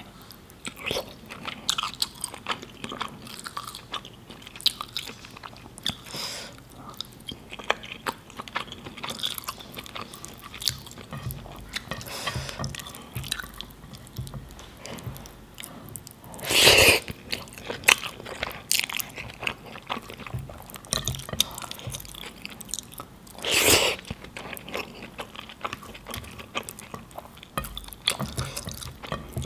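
Close-miked chewing of biryani rice and curry-sauced paneer, a steady stream of small wet mouth clicks and smacks. Two louder sounds of about half a second each come a little past halfway and again about four-fifths of the way in.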